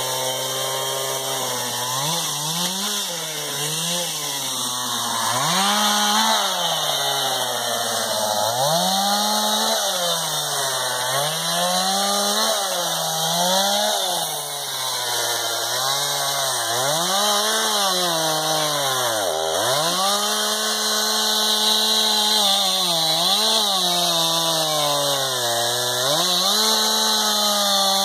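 Chainsaw engine running and revving up, then falling back toward idle again and again. Its pitch dips lowest about two-thirds of the way through.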